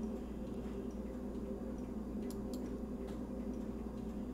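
A few faint computer mouse clicks over a steady low hum: two close together a little over two seconds in and another about half a second later.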